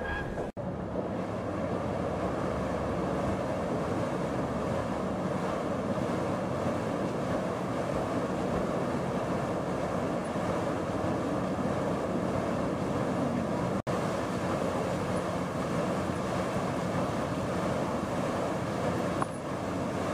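Steady mechanical rumble with a haze of noise. It cuts out sharply for an instant about half a second in and again near fourteen seconds.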